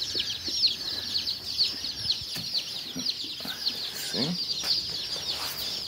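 A crowd of baby chicks peeping nonstop, a dense stream of short, high, falling peeps, with a few light knocks as they are handled.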